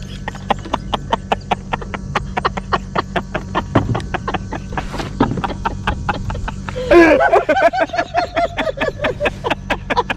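Steady rapid ticking, about five a second, over a low steady hum. About seven seconds in comes a loud burst of high, wavering laughter.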